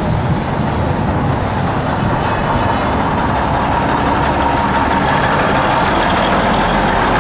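Vintage Birkenhead Transport single-deck bus's diesel engine running as the bus drives slowly past close by, a steady loud rumble with a faint whine over it through the middle.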